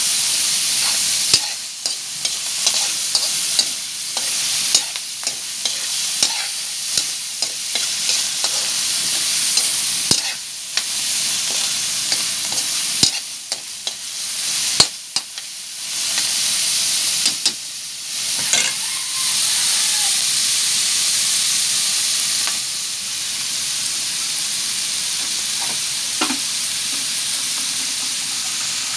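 Minced pork sizzling in oil in a wok, with a spatula scraping and knocking against the pan as it is stirred. The stirring stops about three quarters of the way through, leaving a steady sizzle.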